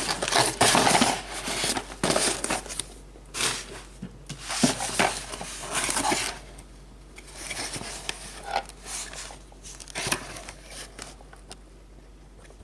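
Packaging being opened and unpacked by hand: irregular crinkling and rustling with light knocks and clicks, easing into quieter pauses around the middle and near the end.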